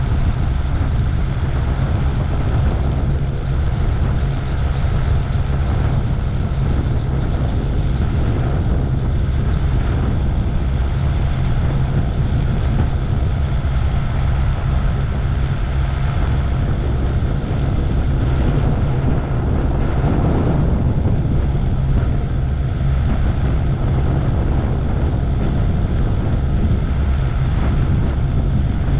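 MTOsport gyroplane's engine and pusher propeller running steadily, heard on board: a deep, even drone with a noisy hiss over it.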